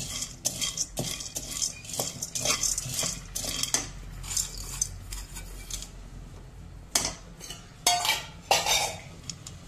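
Plastic slotted spatula stirring and scraping fried gram as it roasts in a black kadai: dry dal rattling and scraping against the pan in quick strokes. The strokes thin out midway and pick up again near the end.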